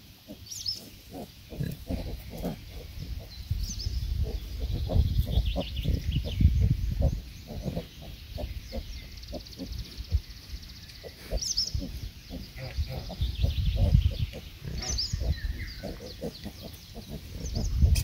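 Farm animals in a pen calling: many short low calls, a few a second, with several high, falling peeps over them.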